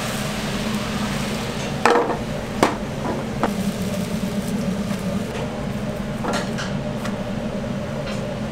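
Frying pans clattering on a gas range as thin egg crepes are cooked and lifted out, with sharp knocks about two seconds in, twice more shortly after, and again past six seconds, over a steady kitchen hiss and hum.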